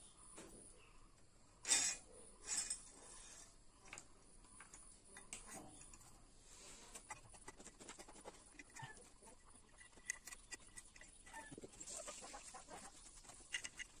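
Small clicks and light knocks of a Hero Duet scooter's cylinder block being handled and slid down over the piston and studs onto the crankcase. Two sharper clicks come about two seconds in.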